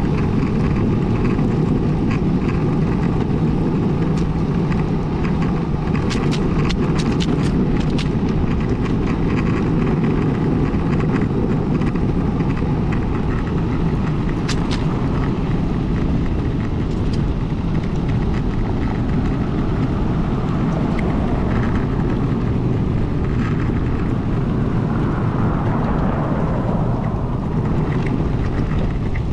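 Magneto longboard's wheels rolling fast over asphalt on a downhill run: a steady low rumble, with a few sharp clicks about six to eight seconds in and once more near fourteen seconds.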